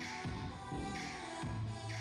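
Upbeat pop dance track with a steady beat and deep bass, playing back from dance practice footage.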